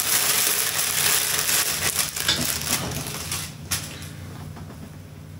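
Clear plastic packaging crinkling and crackling as a bundle of paracord is pulled out of its bag. The crackle dies down to a soft rustle about three and a half seconds in.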